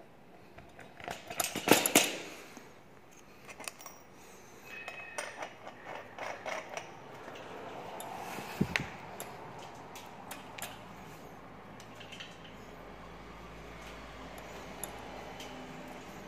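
Metal dump cart's steel frame and mesh bed clinking and rattling as it is handled and tipped, with a burst of louder clanks about two seconds in, more clattering after, and a single sharp click about halfway.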